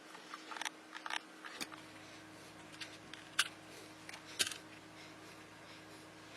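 Light clicks and taps from small objects being handled, scattered irregularly, the two loudest about three and a half and four and a half seconds in, over a faint steady hum. A faint low drone comes in just after a click about one and a half seconds in.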